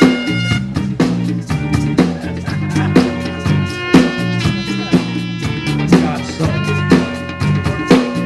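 Live band playing an instrumental passage: drum kit keeping a steady beat, with bass and electric guitar.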